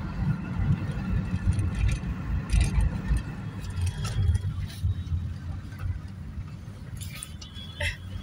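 Car driving: a steady low road and engine rumble heard from inside the cabin, easing off a little about halfway through. A few short clicks come near the end.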